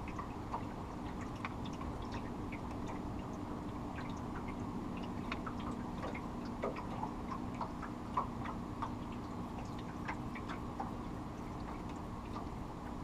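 Boat motor running steadily at low speed, with water lapping against the hull in many small irregular ticks and splashes.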